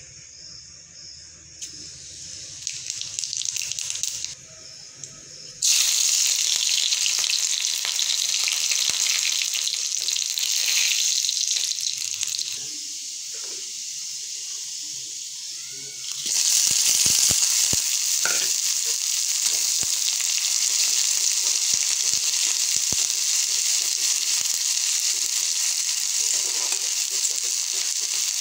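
Hot oil sizzling in a steel kadai, growing suddenly louder about six seconds in and again about sixteen seconds in as more ingredients go into the pan: first small pieces of garlic and spices, then sliced onions with dried red chillies. A steel spatula stirs and scrapes the pan.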